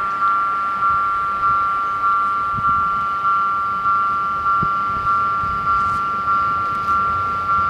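Level-crossing warning bells ringing, a two-tone ding struck about every 0.6 seconds, sounding to warn that a train is coming.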